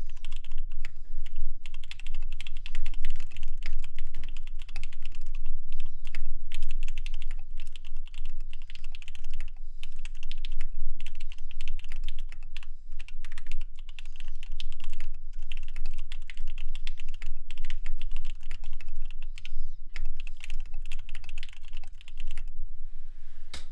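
Continuous fast typing on a wilba.tech Thermal custom mechanical keyboard with lubed Alpaca V2 linear switches on a full aluminum plate: a dense, even stream of keystrokes with a few brief breaks.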